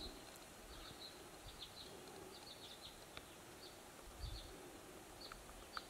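Near silence, with faint, scattered high chirps throughout and a soft low thump about four seconds in.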